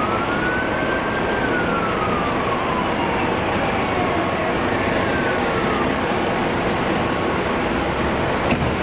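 An emergency vehicle siren sounds once, rising briefly and then winding slowly down over about four seconds, over a steady rumble of idling engines and street traffic. A short click comes near the end.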